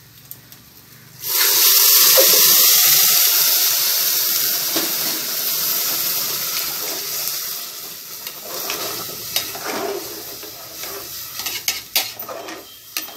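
Hot water poured into a hot pressure cooker of fried rice and chicken: a sudden loud hiss and sizzle about a second in, slowly dying down. Near the end a metal spoon stirs and clinks against the pot.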